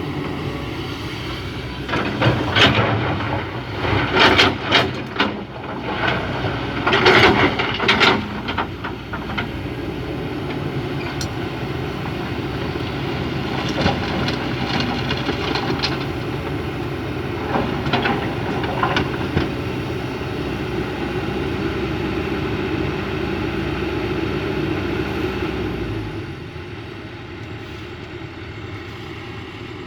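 Excavator's diesel engine running under load, with loud clanks and rattles between about two and nine seconds in and a few lighter ones later as the bucket loads material into a dump truck. About 26 seconds in the engine drops back to a quieter idle.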